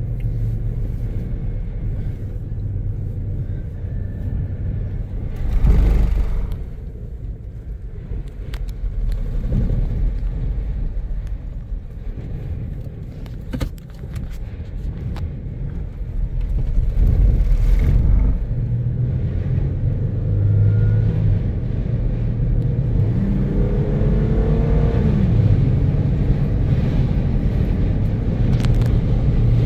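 Car driving on a highway, heard from inside the cabin: a steady low rumble of road and engine noise, with louder rushes about six and about eighteen seconds in, and a short engine tone that rises and then drops near the end.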